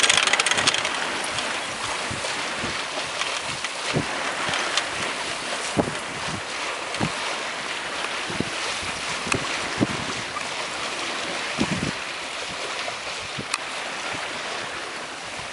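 Wind rushing over the microphone and water washing past a sailboat's hull under sail, a steady hiss broken by irregular low thumps every second or two.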